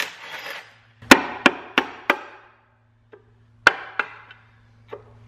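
Hammer tapping a pry bar wedged under the valve cover of a Porsche Cayman 3.4 L M97 engine to break the stuck cover loose: four quick blows about a third of a second apart, a pause, then three more and a lighter one. Each blow rings briefly.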